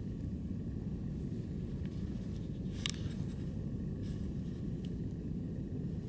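Steady low rumble of wind buffeting the microphone, with a single short crunch of a footstep in snow about three seconds in.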